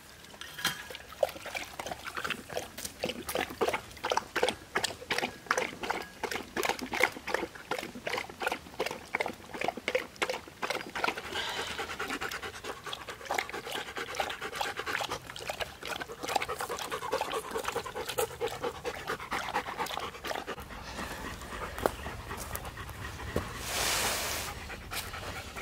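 A Rottweiler and a German Shepherd lapping water from a collapsible dog bowl, about three or four quick wet laps a second, then a dog panting. A short rustle near the end.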